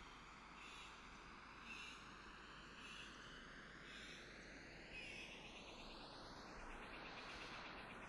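Faint rainforest ambience: a high call from a frog or insect repeats about once a second over a steady hiss. Toward the end the hiss takes on a slow swirling, phasing sweep.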